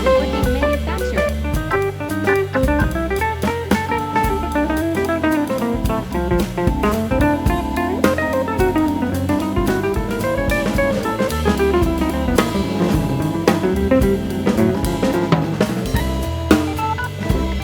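Background music with guitar, bass and a steady drum-kit beat.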